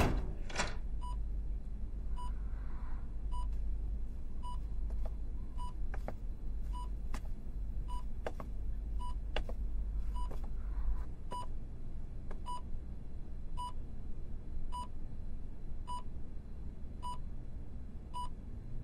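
Bedside patient monitor beeping: a short single tone repeating evenly, a little under once a second, over a low room hum that fades out partway through. A door handle clicks as the door opens at the start.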